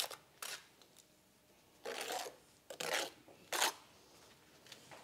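Steel brick trowel scraping through wet mortar: about five short scraping strokes, the longest about two seconds in, as mortar is spread and a brick is buttered and laid.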